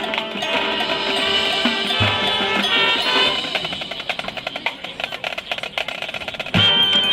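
High school marching band playing brass-and-percussion show music, held chords giving way to fast rhythmic drumming, with a sudden loud full-band entry with bass drum hits near the end.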